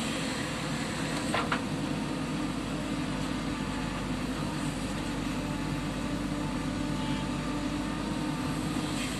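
Diesel engine of a JCB 3DX backhoe loader running steadily while it works, with one short sharp clank about a second and a half in.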